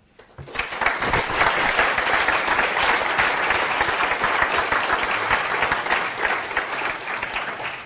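Audience applauding, rising within the first second and dying away at the end.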